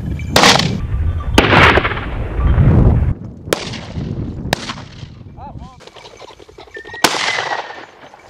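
Shotgun shots fired at flushed gamebirds. There are two loud blasts with ringing tails in the first two seconds, sharper cracks a few seconds in, and another blast near the end.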